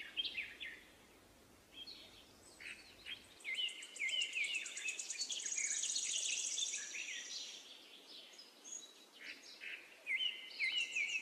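Birds chirping and twittering in short, sweeping calls, with a fast, high trill from about three to seven seconds in.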